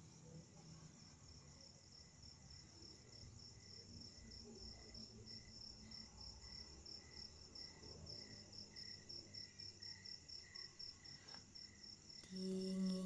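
Crickets chirping steadily at night, a high pulsing trill about four times a second. Near the end a low, steady hummed voice comes in.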